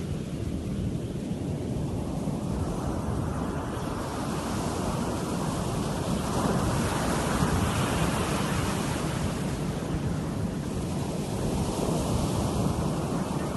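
Ocean surf breaking on a sandy beach: a steady rushing wash that swells louder about halfway through and again near the end as waves come in.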